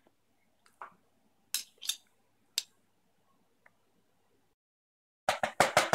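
Metal spoons clinking and scraping against each other as butter is scraped into a plastic measuring cup, a handful of separate short clinks. Near the end a fast run of loud sharp knocks begins.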